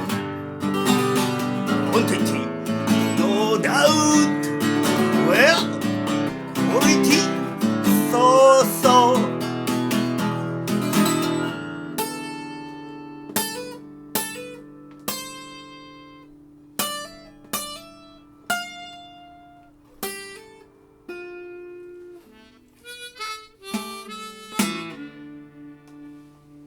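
Instrumental music with no voice: a dense passage with bending, held melody notes over chords, which about twelve seconds in thins to single notes ringing out one at a time over a held low tone, fading toward the end.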